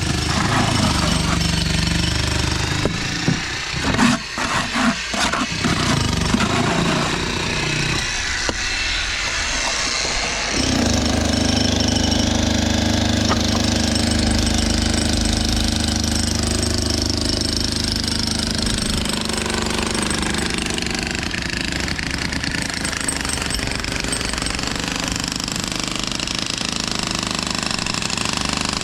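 Heavy construction machinery with an engine running steadily, with a few sharp knocks in the first several seconds. The engine note drops out briefly, then comes back steady and a little louder about ten seconds in.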